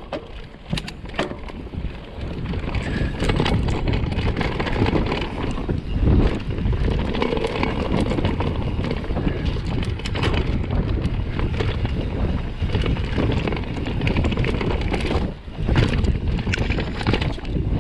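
Vitus Sommet 29 mountain bike riding down a rough trail: tyres rumbling over dirt and roots with frequent knocks and rattles from the bike, and wind buffeting the chest-mounted microphone.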